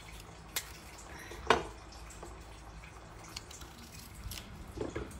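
Small knife peeling a vegetable by hand: faint scraping with a few sharp clicks and ticks, the loudest about a second and a half in.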